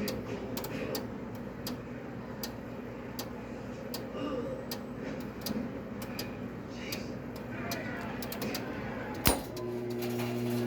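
An 18-pound commercial washer with sharp clicks about once or twice a second over a noisy background. Near the end a loud click sounds and a steady electrical hum starts and grows louder.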